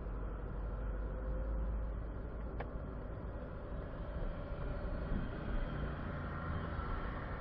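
Car driving: steady engine and road rumble, with a single short click about two and a half seconds in.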